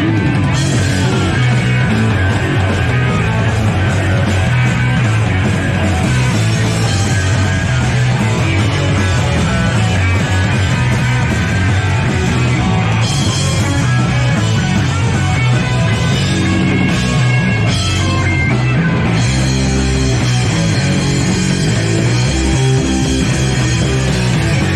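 A punk rock band playing live and loud, with electric guitar. About three-quarters of the way through, the top end drops back and the bass notes come forward as the song changes section.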